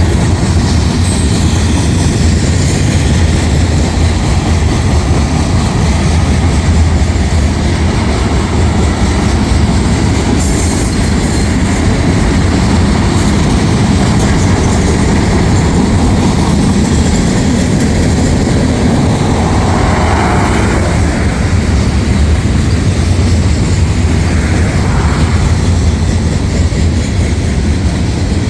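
Freight cars of a long manifest train rolling steadily past: a heavy, continuous rumble of wheels on rail, with a brief high squeal about ten seconds in.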